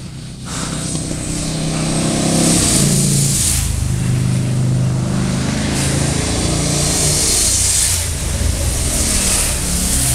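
Motorcycle engine coming closer and passing, growing louder over the first couple of seconds and then staying loud, its pitch shifting as it goes by.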